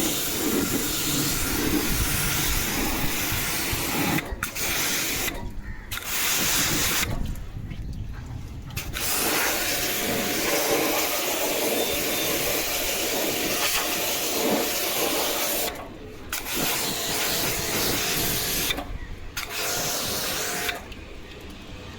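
Water jet spraying onto an air conditioner's outdoor unit with a steady hiss, cut off several times for a second or so and then started again.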